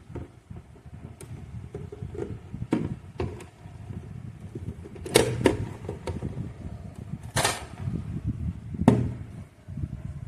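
Irregular knocks and rubbing handling noise over a low rumble, with the loudest knocks about five, seven and a half and nine seconds in.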